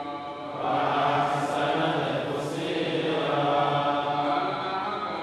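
A man's voice reciting the Quran in a melodic chant, holding long notes that slowly rise and fall; it grows louder about a second in.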